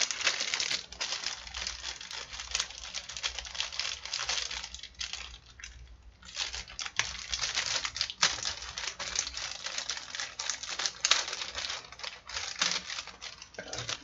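Plastic packaging crinkling and rustling in the hands, with many small sharp clicks of hard parts knocking inside it: a bag of small PC-case accessory parts being opened and handled. There is a quieter spell about five to six seconds in.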